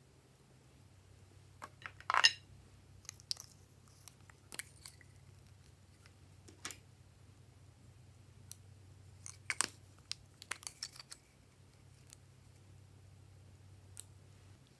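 Glossy slime being worked by hand, giving scattered sticky clicks and pops. One loud pop comes about two seconds in, and a quick run of them a little past halfway, over a faint steady low hum.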